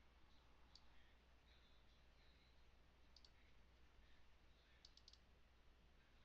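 Near silence over a faint steady low hum, broken by faint computer mouse clicks: one about a second in, a double click around three seconds in, and a quick run of three or four clicks near five seconds.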